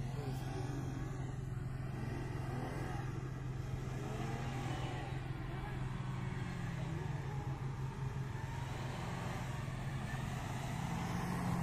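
A vehicle engine running with a steady low hum, its pitch rising slightly in the second half and again near the end.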